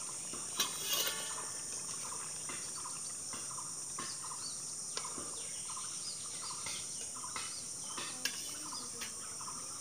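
Steady high shrill of insects with scattered bird chirps. A few sharp metallic clinks of the steel lid and spatula against the wok, the loudest about a second in and another near the end, as the fish curry is uncovered and stirred.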